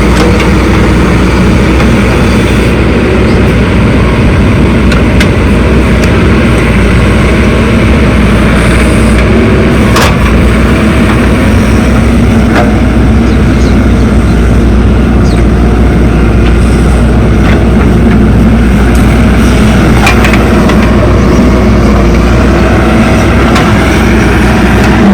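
Diesel engines of a backhoe loader and tractor running steadily at work, with a few sharp knocks and clicks over the top.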